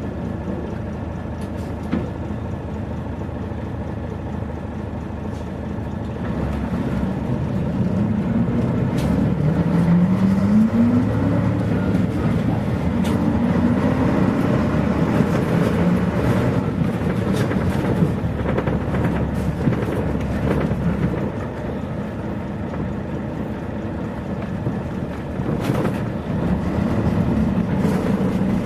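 Mitsubishi P-MP218M city bus's diesel engine heard from inside the bus: running low at first, then pulling away with its note climbing twice as it works up through the gears. It eases off about two-thirds of the way through and picks up again near the end, with a few single clicks and rattles.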